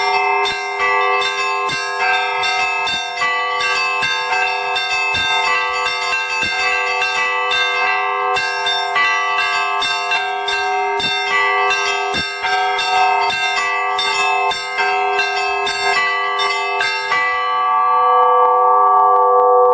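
Orthodox church bells rung together in a rapid peal, several strokes a second over the ringing tones of the larger bells. The strokes stop about seventeen seconds in and the bells ring on, dying away.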